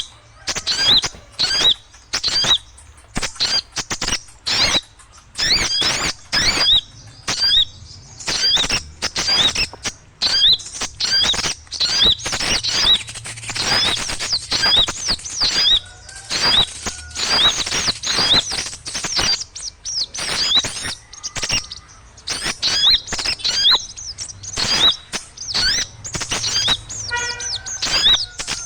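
A flock of small birds chirping noisily: rapid, sharp, downward chirps come several a second in clusters with short pauses. It is a bird-lure recording meant to draw small birds straight in.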